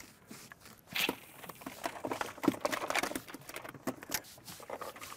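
Faint, irregular clicks and small knocks of a spinning rod and reel being worked as a lure is cast and cranked back quickly, with one sharper click about a second in.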